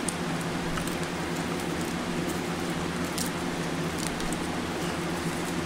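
A few faint crinkles and ticks as the foil and paper wrapper of a Reese's miniature peanut butter cup is peeled off by hand, over the steady hum of an electric fan.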